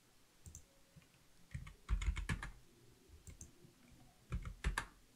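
Computer keyboard keys being tapped to type a number, in two short bursts of clicks: one about a second and a half in, the other near the end.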